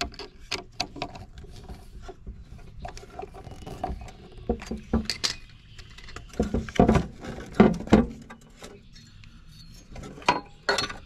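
Scattered light clicks, knocks and clinks of hands working at a mower battery's terminal, moving the negative cable and its terminal cover, with a few louder knocks in the middle.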